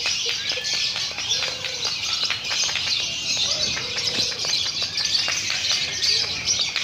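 Many caged lovebirds chirping and chattering at once in a dense, continuous high-pitched chorus: the din of a lovebird singing contest.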